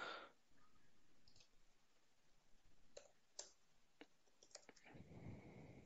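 Near silence broken by a few faint, isolated clicks of a computer keyboard and mouse, about three and four and a half seconds in.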